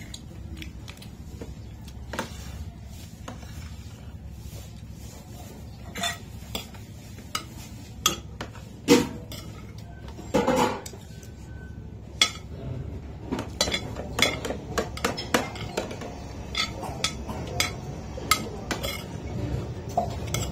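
Spoons and forks clinking and scraping against plates and bowls while people eat, in irregular single clicks that come more often in the second half, over a steady low hum.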